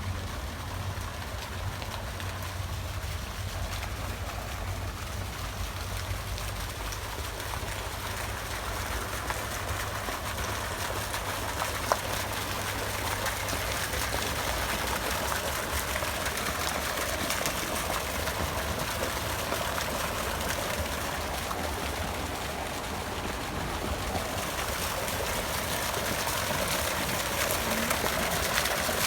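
Steady running water, like a fountain or small cascade, over a low constant rumble.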